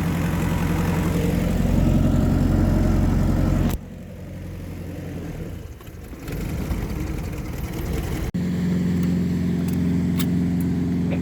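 Ford 2.3-litre four-cylinder boat engine (MerCruiser inboard/outboard) running steadily while its cooling system moves no water and it overheats. About four seconds in the sound drops sharply and stays quieter for several seconds, then the loud steady running returns just as suddenly.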